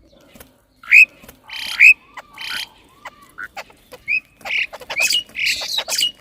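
Birds calling: short, sharply rising chirps mixed with harsh, raspy squawks about half a second long, busiest in the second half, with a few sharp clicks in between.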